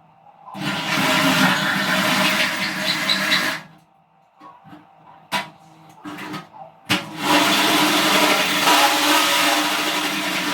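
Electric drill running a hole saw into sheet steel, in two long runs of about three and four seconds with two sharp clicks in the pause between. The hole saw is a wood-cutting one, blunted and struggling to cut the steel.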